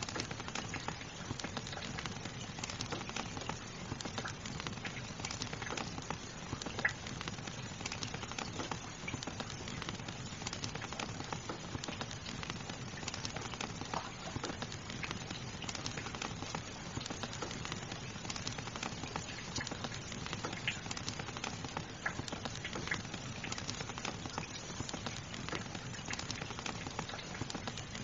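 Steady rain hiss mixed with a gently crackling fire, small pops scattered irregularly throughout.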